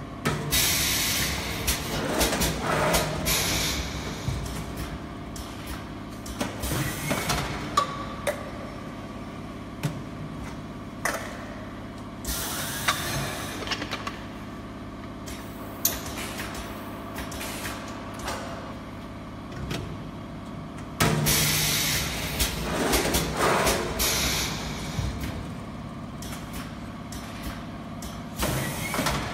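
Isobaric can filling and seaming machine running: a steady hum broken by several long bursts of hissing gas from its valves, with sharp clunks and knocks as aluminium cans are set on and taken off its platforms.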